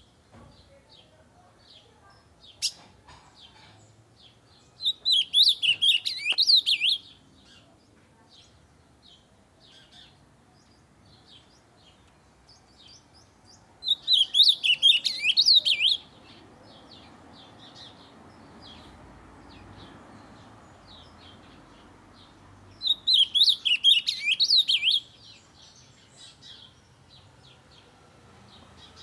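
Ultramarine grosbeak (azulão) singing: three loud, warbled song phrases of about two seconds each, roughly nine seconds apart, with soft short chirps in between.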